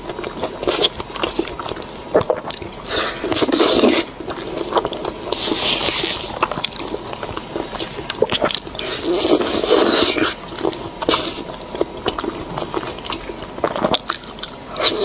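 Close-miked eating: bites and chewing with wet mouth clicks, coming in bursts every few seconds.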